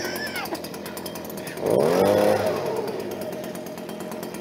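Small motor of a garden power tool running steadily, its pitch rising and falling in a brief surge about two seconds in.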